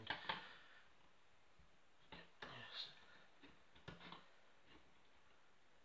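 Faint, scattered clicks and small knocks of a door handle and lock being worked by hand, with quiet room tone between them.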